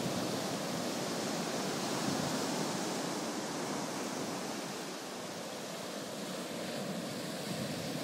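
Ocean surf breaking and washing onto a sandy beach: a steady rushing wash that eases a little midway and builds again near the end.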